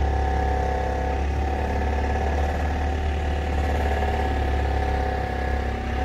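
An engine idling steadily: a deep, even hum with a few steady higher tones over it.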